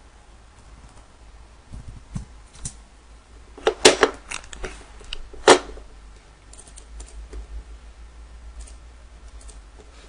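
Irregular clicks and taps of a computer keyboard and mouse, with two louder clicks about four and five and a half seconds in and fainter ticks after them.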